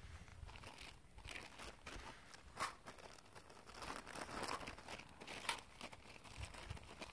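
Clear plastic zip-lock bag crinkling and rustling as it is handled and pulled open, in irregular crackles with a couple of sharper ones.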